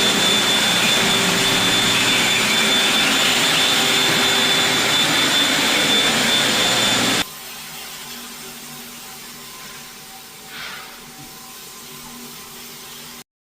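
Electric floor-care machine running steadily with a high whine, which cuts off abruptly about seven seconds in to a much quieter steady hum.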